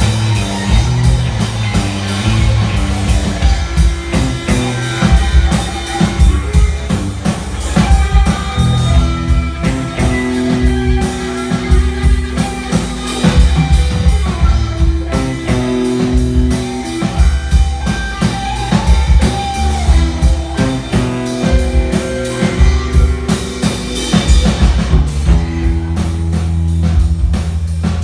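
Rock band playing live, an instrumental passage with no singing: a drum kit beating steadily under guitar and deep bass notes.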